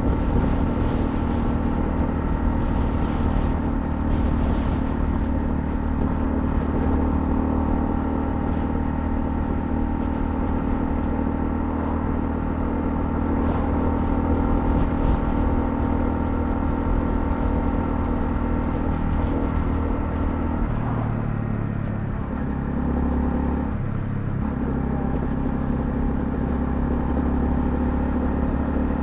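Honda CL250's single-cylinder engine running under way at steady speed, with wind and road noise. About two-thirds of the way through, the engine note drops and shifts for a few seconds, then settles back to a steady pitch.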